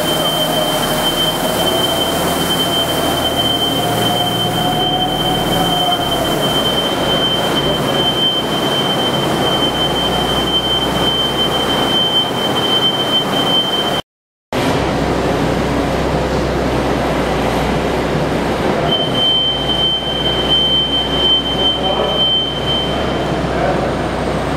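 Tractor engine running as it pushes a front-mounted push broom across a concrete warehouse floor, a loud steady mechanical noise with a thin high whine over it through much of it. The sound cuts out for a moment about halfway through.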